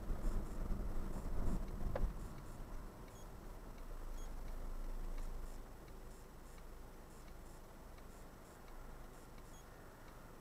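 Car cabin noise picked up by a dashcam while driving: a low engine and road rumble that fades after about two seconds to a quiet hum, with a single click about two seconds in and faint, regular high ticking.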